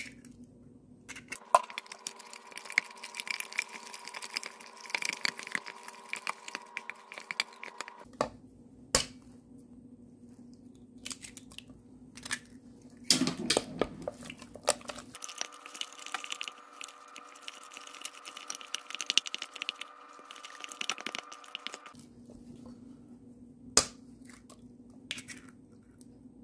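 Wooden spoon beating eggs into thick choux pastry dough in a stainless steel saucepan: wet squelching and scraping in two long spells of stirring. A few sharp knocks on the pan come between them, one at the start as an egg is cracked.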